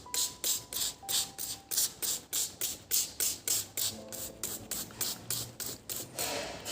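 Quick, regular brushing strokes, about three a second, over soft background music.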